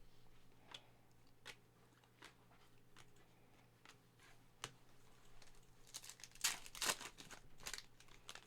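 Trading card pack wrapper crinkling and tearing as packs are opened and cards handled, with scattered light clicks and taps; a louder run of crinkling comes about six to seven seconds in.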